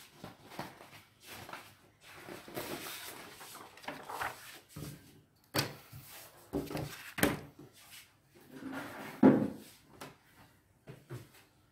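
Craft materials being handled: a sheet of paper rustling as it is laid out, with irregular knocks and taps as a plastic ruler and scissors are set down on a cloth-covered table. The loudest knock comes about three quarters of the way through.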